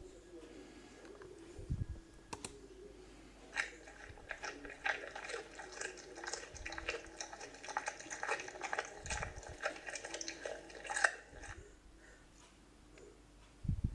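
Domestic cat crunching dry kibble: a quick run of crisp crunches that starts a few seconds in and stops a few seconds before the end.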